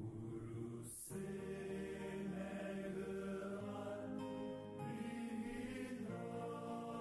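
Background music of slow, held notes in chords that change about a second in, around four seconds and around six seconds.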